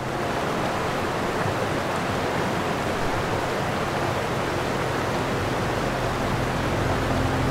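Ocean surf: a steady rush of waves breaking on a beach.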